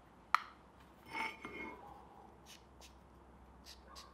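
A sharp click, then a metallic clink with a brief ring as the steel bar and marker cap are set on the anvil, then faint scratchy strokes of a paint marker drawing on the steel.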